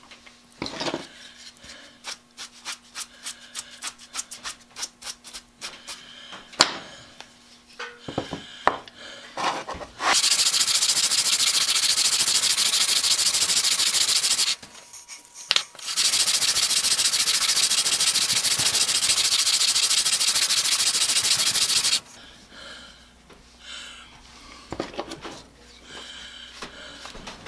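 Wooden sole of a transitional hand plane rubbed back and forth on 80-grit sandpaper to flatten its scooped bottom: a loud, even rasping hiss for about four seconds, a brief pause, then about six seconds more. Before and after the sanding there are lighter scrapes and ticks as the sanding dust is wiped and brushed off the paper.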